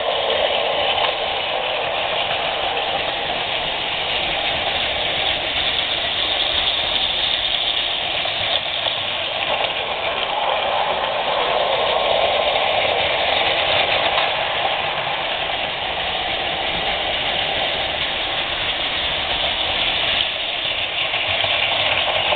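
Several Plarail battery-powered toy trains running on plastic track, with a steady whirring from their small motors and gears. It swells slightly near the end as one train passes close by.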